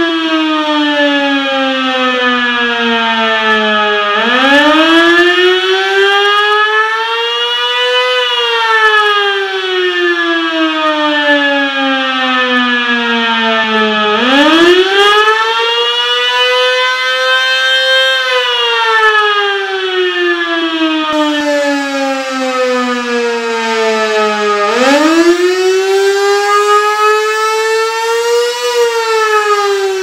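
Darley 3v8 mechanical outdoor warning siren sounding a repeating wail. Three times, its pitch shoots up, climbs more slowly to a peak over about four seconds, then slides slowly back down for about six seconds before the next rise.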